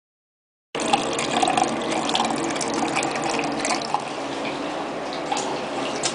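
Steady rushing noise of running water, like a tap running into a sink, starting abruptly under a second in after silence.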